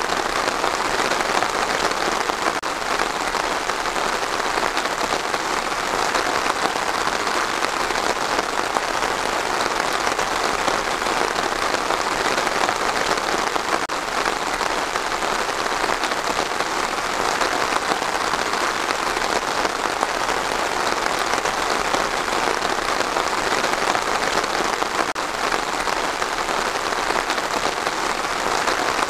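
Steady rain falling on pine trees: an even, unbroken hiss of many drops, with no let-up.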